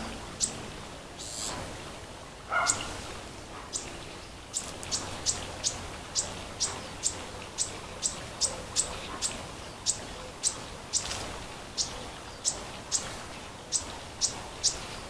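A small bird chirping over and over, one short high chirp at a time. The chirps come a few seconds apart at first, then about two or three a second from about four seconds in.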